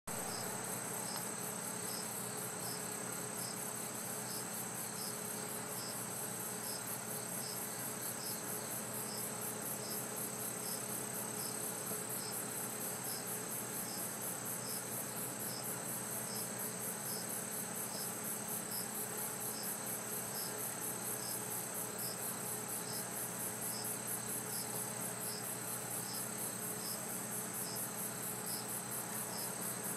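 Chorus of singing insects: a steady, fast, high pulsing trill with a separate higher chirp repeated a little over once a second, over a faint steady low hum.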